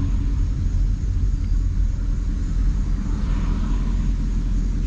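Steady low exhaust rumble of a 2018 Ford Mustang GT's 5.0 L Coyote V8 through an AWE Touring cat-back exhaust, heard inside the cabin while driving.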